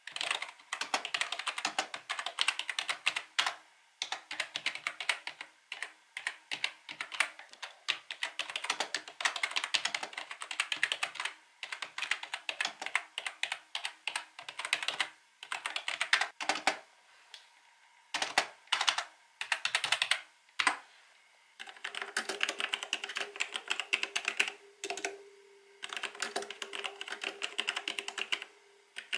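Typing in bursts on a Logitech G213 Prodigy membrane gaming keyboard, a fast patter of soft key presses with short pauses between runs. About 22 seconds in, the typing switches to a different keyboard, over a faint steady hum.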